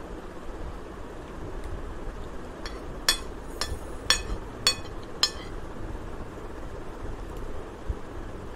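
Steel spoon clinking and scraping on a ceramic plate while gathering the last grains of fried rice: about six sharp clinks roughly half a second apart in the middle, over steady background noise.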